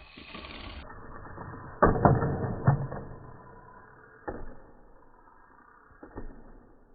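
Hot Wheels Sizzlers toy car crashing: a burst of clattering knocks about two seconds in, then two lone knocks, one near the middle and one near the end.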